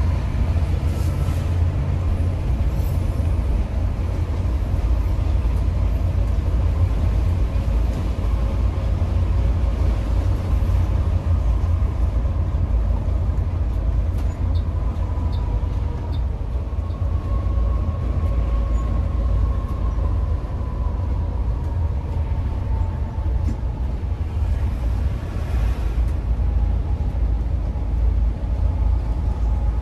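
Mercedes-Benz O500R 1836 coach underway, heard from inside the passenger cabin: a steady deep rumble of diesel engine and road noise, with a faint whine that drifts slowly up and down in pitch.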